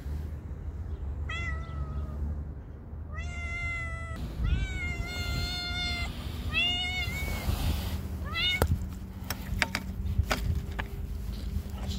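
Hungry stray cats meowing for food: five or six drawn-out meows, each rising then falling in pitch, over the first eight seconds. A run of sharp clicks and taps follows near the end.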